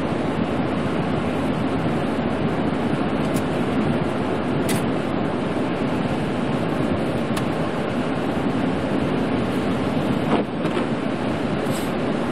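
Steady in-cab noise of a Chevy pickup truck driving on a wet, snowy highway: tyre and engine noise mixed with the windshield defroster fan. A few faint clicks come through.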